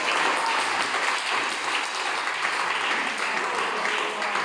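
Applause from a room of people: many hands clapping at once, with the lecturer clapping along.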